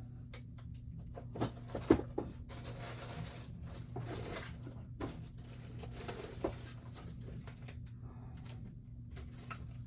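Small objects being handled on a workbench: a few sharp clicks and taps, the loudest about two seconds in, with stretches of rustling, over a steady low electrical hum.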